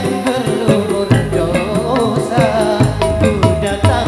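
Dangdut koplo band playing live, with drums keeping a fast, even beat under a wavering melody line.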